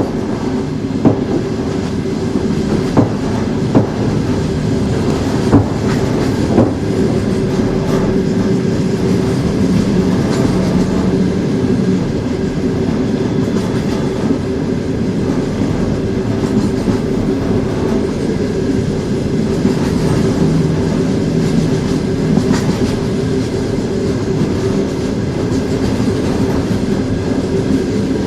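Train running along the track: a continuous low rumble and steady hum, with a few sharp clacks of the wheels over rail joints in the first seven seconds.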